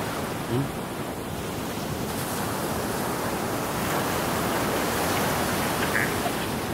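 Steady wash of surf breaking on a sandy beach.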